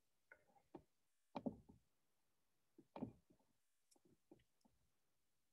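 Near silence broken by faint, irregular ticks and knocks, two of them a little louder about one and a half and three seconds in.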